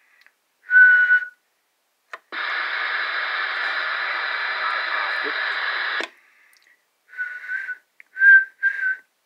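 Galaxy DX-2547 CB radio going back and forth between receive and transmit on lower sideband. While the mic is keyed the speaker is silent and a short whistle goes into the microphone about a second in. Steady receiver hiss comes from the speaker for about four seconds after the mic is released. The mic is then keyed again for three or four short whistles near the end.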